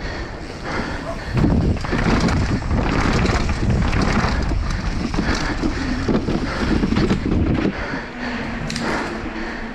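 Wind buffeting the microphone while a downhill mountain bike rattles and knocks over rough trail at speed.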